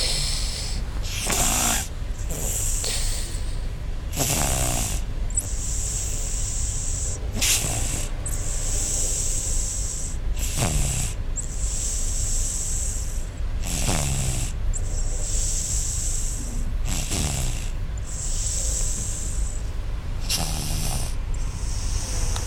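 A sleeping pet snoring, about one snore every three seconds, each snore falling in pitch, with a hissing breath between snores.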